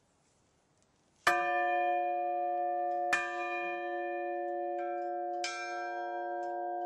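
Church bells rung by hand with ropes: after a second of quiet, four strikes, the third lighter, each left ringing on and overlapping the next.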